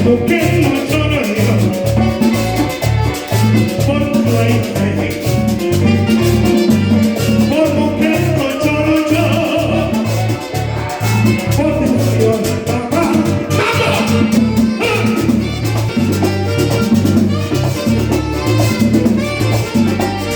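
Latin dance music played by a band: an instrumental passage with a bass line in short repeated notes over a steady beat, with no sung words.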